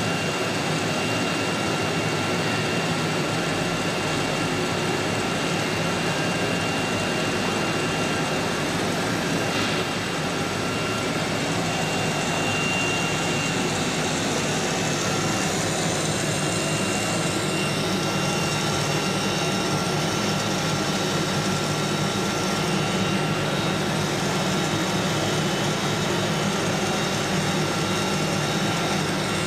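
Steady machinery noise of a running three-spindle CNC router: a constant mechanical drone with a few thin, steady high whining tones.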